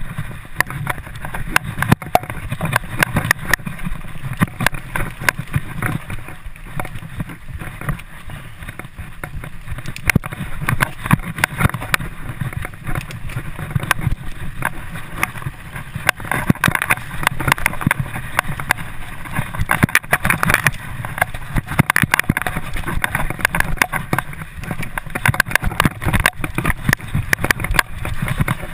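Mountain bike ridden fast down a dirt forest singletrack, heard from a camera fixed to the bike: steady tyre and rolling noise with constant irregular rattling and knocks as the bike and mount jolt over bumps.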